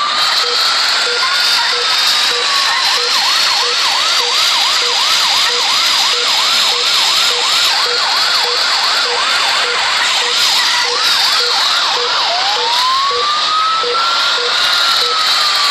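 Ambulance siren in a slow wail, switching a couple of seconds in to a fast yelp of about three rising-and-falling sweeps a second, then back to the slow wail near the end.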